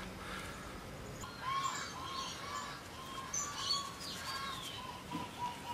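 Birds calling in the background: a run of short, repeated arched notes with higher chirps over them, starting about a second in.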